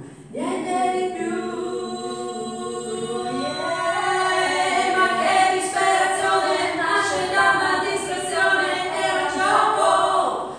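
Two women singing a cappella, their voices continuous after a short pause at the start.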